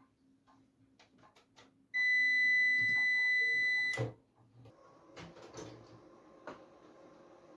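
Desktop PC beeping once as it is powered on to test the refitted RAM: a single steady, high electronic beep lasting about two seconds, cut off with a click. A few light clicks come before it, and a faint steady whir follows.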